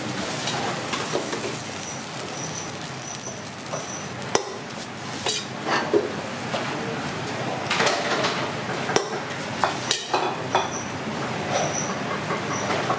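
Kitchen noise: a steady hiss with scattered clinks and knocks of pots and utensils. A run of short high chirps comes twice, about two seconds in and again near the end.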